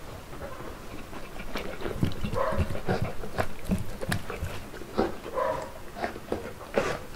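Saint Bernard eating pieces of meat off a plate: wet chewing and lip-smacking, with irregular clicks of its jaws and teeth, busier after about two seconds. Two short vocal sounds come through about two and five seconds in.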